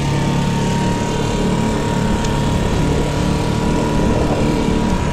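Small boat's motor running steadily with a low, even hum.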